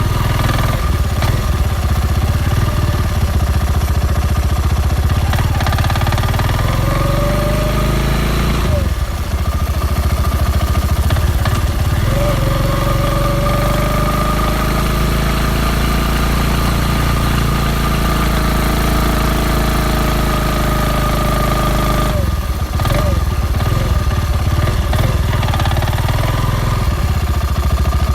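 Spy Racing 350 F1 quad's engine running and pulling, with a whine that rises and falls in pitch as it speeds up and slows, briefly dropping off twice. The owner suspects an engine fault: the bike makes a clacking noise in first gear when cold, which fades in second gear and once the engine is warm.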